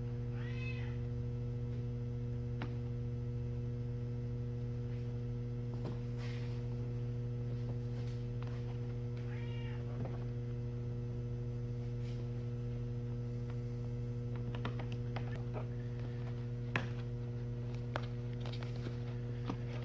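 Steady electrical mains hum, with scattered light clicks and taps. Two short, high pitched calls come about half a second and about nine and a half seconds in.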